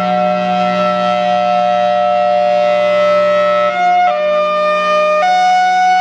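Federal Signal Thunderbolt 1003 outdoor warning siren sounding its hi-lo alert, very loud. It holds one steady chord, then for the last couple of seconds switches back and forth between a high and a low pitch about once a second.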